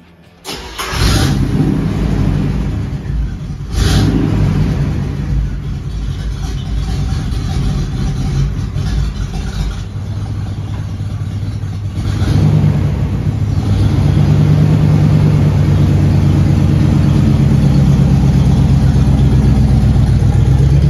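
Chevrolet GMT400 pickup's engine cranking and firing up about half a second in, with a short rev around four seconds in. It then keeps running steadily and gets louder from about twelve seconds in.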